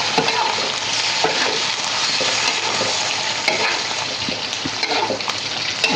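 Mixed vegetables stir-frying in hot oil, a steady sizzle, with scattered clicks and scrapes of a spatula stirring the pan.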